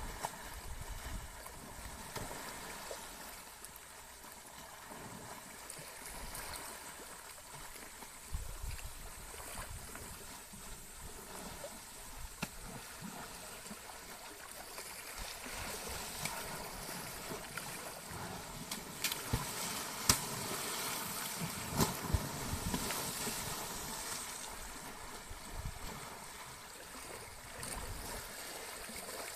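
An Asian elephant bathing in a muddy pond, the water sloshing and splashing steadily around it as it rolls and wades. A few sharp cracks stand out about two-thirds of the way through.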